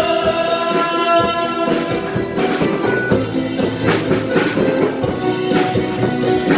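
Live band playing an instrumental passage of a Korean trot-style ballad: keyboard chords with a drum kit marking the beat, sharp drum hits from about two seconds in.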